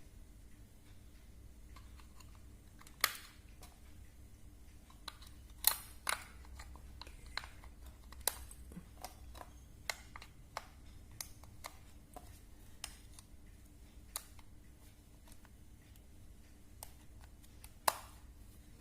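Irregular sharp clicks and taps of small plastic parts being handled: three AAA batteries going into a kids' digital video camera's battery compartment, with the loudest clicks about three, six and eighteen seconds in.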